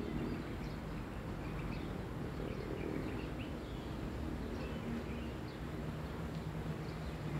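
Small birds chirping over and over, faint short calls, over a steady low outdoor rumble.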